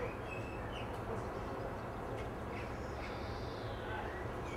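Faint distant conversation of a few people over a steady low rumble, with a couple of short high chirps near the start and near the end.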